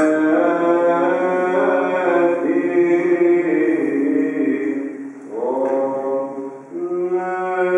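Greek Orthodox Byzantine chant of a memorial service, sung unaccompanied. The voices break off briefly about five seconds in, and a steady low drone note holds under the melody from about seven seconds in.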